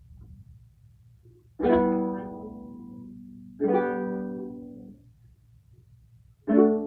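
Long-neck gittern strummed in three chords, about two seconds apart, each left to ring and fade away.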